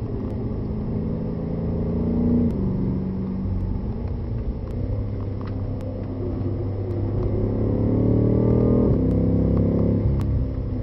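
BMW M5's twin-turbo V8 heard from inside the cabin, pulling hard with its pitch climbing. The pitch drops sharply at an upshift about two seconds in, then climbs again under full acceleration, loudest just before a second upshift near the end.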